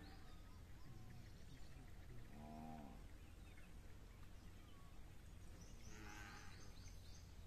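Near silence outdoors with a steady low hum and a few faint distant animal calls: a low, bending call about two and a half seconds in and a higher call around six seconds.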